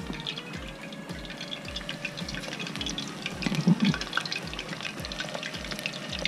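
Tempura-battered, panko-coated pieces deep-frying in a pot of hot oil, bubbling and crackling with many small pops. A brief low sound comes a little past the middle.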